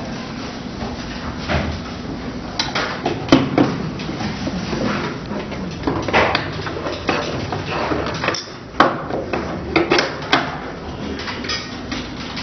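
Cavitation handpieces being lifted out of and set back into a clear acrylic holder: a series of sharp knocks and clacks, spaced a second or more apart, over a steady low hum.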